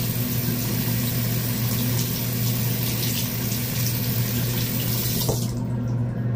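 Water running from a tap into a sink, over a steady low hum; the water stops suddenly about five seconds in.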